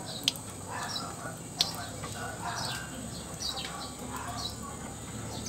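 Faint, scattered bird chirps, with two sharp clicks about a third of a second and a second and a half in.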